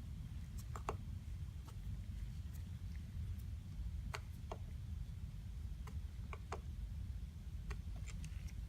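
Irregular light clicks and taps of a small screwdriver working a tiny jet screw into a Kawasaki Mule carburetor body, over a steady low hum.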